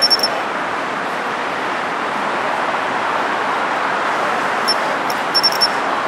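Japanese pine cricket (matsumushi, Xenogryllus marmoratus) singing. It gives a short run of clear, high chirps at the start and another run near the end, over a steady hum of road traffic.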